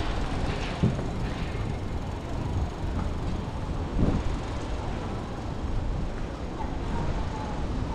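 Open-air ambience with a steady low rumble, faint voices of people passing and two short thumps, about one second and four seconds in.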